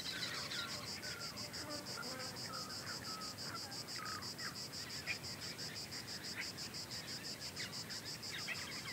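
Insects trilling in a steady, rapidly and evenly pulsing chorus, with faint short chirps scattered through it.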